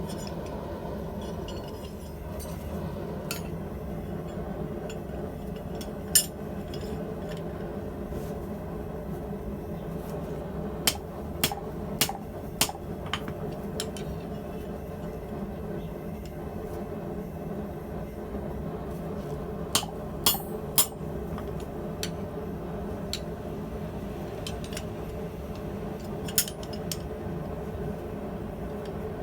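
Scattered sharp metal clinks and light taps of steel tongs and workpiece at the forge, some singly and some in quick clusters of three or four, over a steady low hum.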